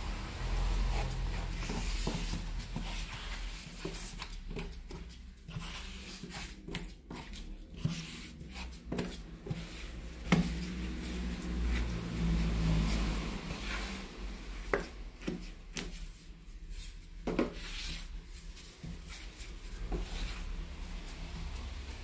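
Hand trowel scraping and smearing grout along the joint between wall and floor tiles, an irregular rubbing and scraping with a few sharp taps of the blade.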